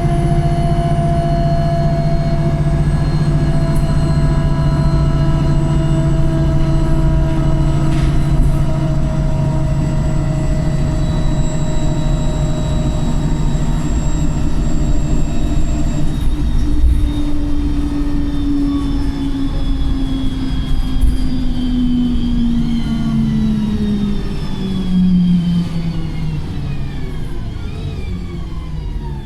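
Optare Pulsar single-decker bus heard from on board, its gearbox and differential whining in several steady tones while it runs at speed. Over the last dozen seconds the whine glides down in pitch as the bus slows.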